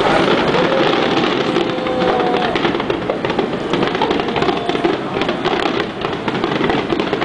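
Fireworks display: many aerial shells bursting in quick succession, making a dense, continuous crackle of reports.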